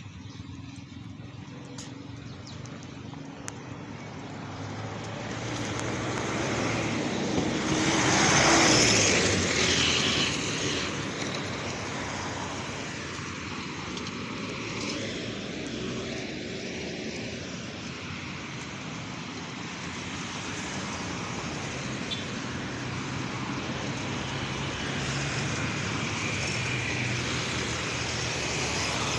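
Road traffic: a vehicle passes close by, swelling to its loudest about eight seconds in and fading, then a steady wash of passing traffic that swells again near the end.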